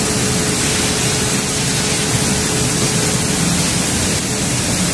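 Steady, loud rushing noise like a shop fan or ventilation, with a faint steady hum underneath that fades out about three and a half seconds in.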